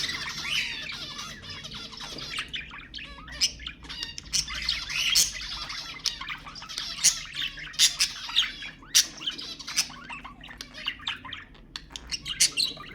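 Budgerigars chattering and warbling without pause, broken by frequent sharp squawks and chirps.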